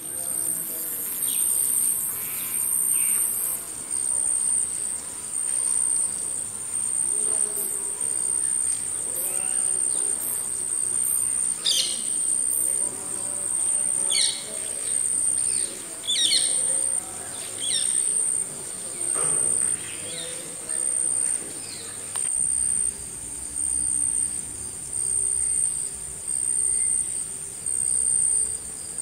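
Nature ambience: an insect chirps in a steady high-pitched pulse about once a second, with scattered short bird calls between, most of them in the middle of the stretch.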